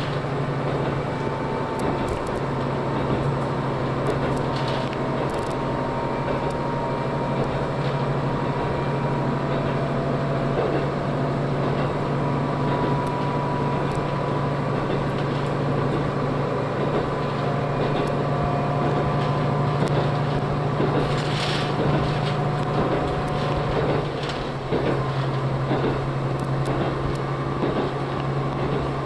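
Diesel railcar under way, heard from inside the passenger cabin: a steady low engine hum over the running noise of wheels on rail.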